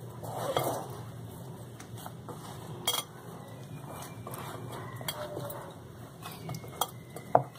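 Hand mixing and kneading flour into dough in a glass bowl: soft rubbing and squishing, with sharp clinks against the glass about three seconds in and near the end. A low steady hum sits underneath.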